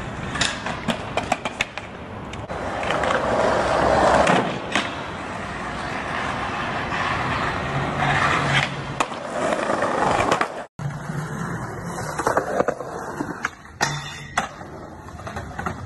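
Skateboard trucks grinding along a long metal handrail, a rough scraping that swells and fades for about ten seconds. After a sudden cut comes a string of sharp clacks and knocks as a board pops, strikes a rail and lands.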